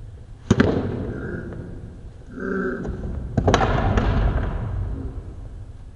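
Two sharp tennis ball impacts about three seconds apart, each followed by a fading rush of noise, with a brief voice in between.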